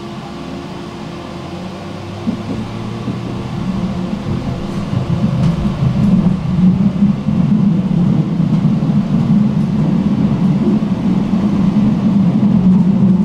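Tram running on its rails: a steady electrical hum gives way, about four seconds in, to a louder low rumble of wheels on track that holds to the end.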